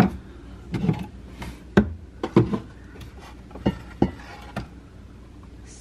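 Bottles and a flat metal tray being handled and taken down from a wooden cabinet shelf: a run of irregular knocks and clatters, quieter for the last second or so.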